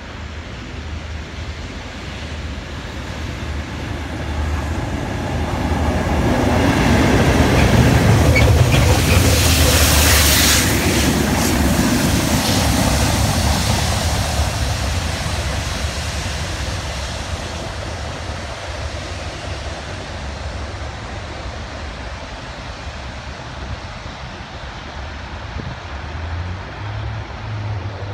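Two Class 37 diesel locomotives with their English Electric V12 engines passing at speed on a railhead treatment train: the engine rumble and a loud hiss swell to a peak about ten seconds in as the train goes by, then slowly fade into the distance.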